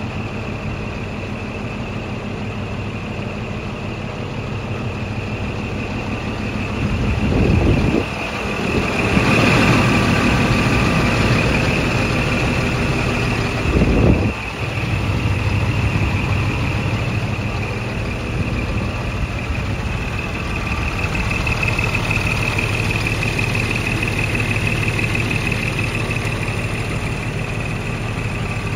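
Scania G420 hook-lift truck's straight-six diesel idling steadily, with a steady high whine over the engine note. Two short low rumbles stand out, about a quarter of the way in and again around halfway.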